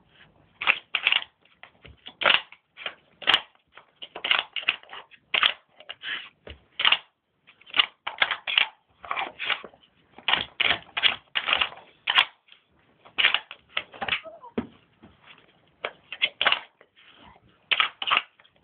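Plastic blocks and lids of a Nina Ottosson Dog Brick puzzle toy clattering and knocking as a dog works them, in irregular clusters of sharp clicks a few times a second.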